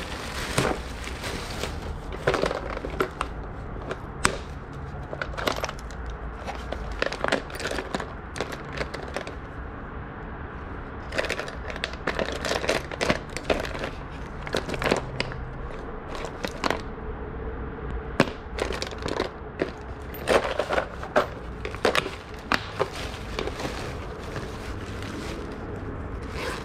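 Objects being rummaged through and handled in a trunk: irregular knocks, clacks and rustling as items are picked up, moved and set down, with a few sharper knocks standing out.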